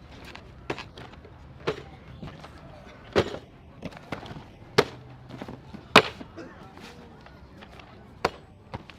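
Irregular sharp knocks or taps, about six of them a second or so apart, the loudest about six seconds in, over a faint background murmur.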